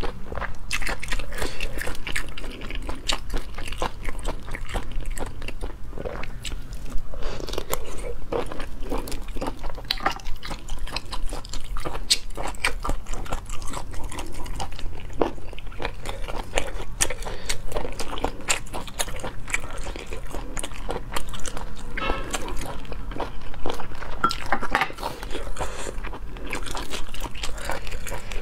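Close-miked eating of large sea snail meat: continual biting and chewing with many small irregular clicks.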